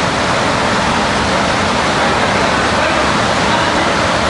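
Steady, loud rushing noise with no breaks or changes.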